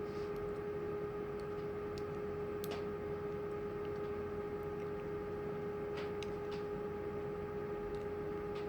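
A steady electrical hum at one pitch with a couple of overtones, with a few faint light clicks scattered through it.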